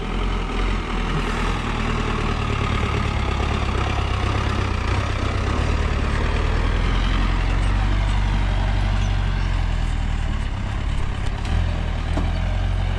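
Old Land Rover Series-type 4x4 with a canvas top: its engine working hard as it climbs a steep, rocky dirt track, passing close by and pulling away uphill. The engine is loudest around the middle as it goes past.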